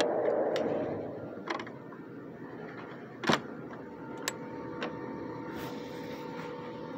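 Garbage truck working at a dumpster: steady engine noise that drops after the first second, a sharp metallic bang about three seconds in among a few lighter clanks, and a faint steady whine setting in about halfway through.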